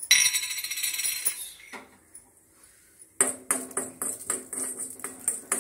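Fenugreek seeds going into a hot iron kadai with a brief hissing rattle. About three seconds in, a metal spoon starts stirring and scraping them around the pan in quick repeated strokes, the pan ringing faintly under them.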